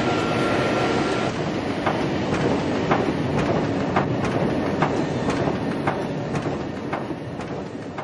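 Printing press running: a steady mechanical clatter with a regular click about twice a second, easing off a little near the end.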